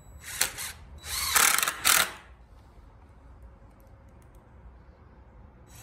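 Cordless DeWalt drill driving a screw into a wooden frame: a short burst, then a longer run of about a second ending in a brief final spurt, all within the first two seconds or so.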